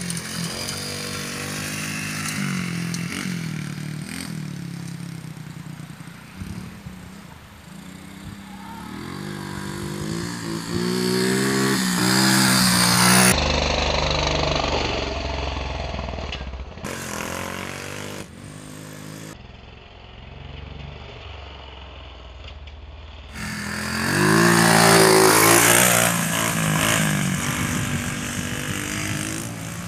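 A small dirt bike engine revving up and down as it rides over dirt mounds, with two loud rising surges of revs. The sound cuts off and back in abruptly a few times in the middle.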